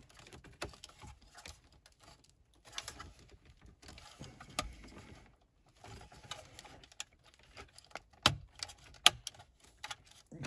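Plastic wiring-harness connectors being worked onto the back of a car radio by hand: scattered light clicks and rustling, with a few sharper clicks in the second half.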